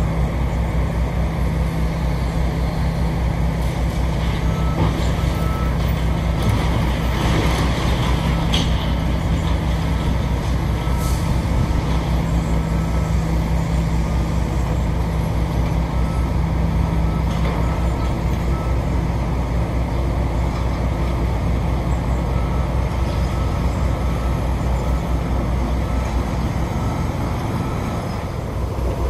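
Heavy diesel demolition excavators running steadily, a continuous low engine drone. Scattered clanks and knocks of debris being handled come mostly in the first half, along with a faint, broken beeping like a back-up alarm.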